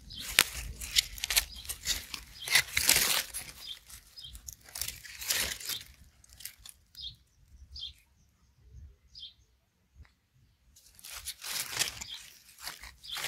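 A hand scraping and digging through dry wood-chip mulch and soil around a garlic bulb: crackling, crunching rustles. The crunching stops for about four seconds midway, then starts again near the end.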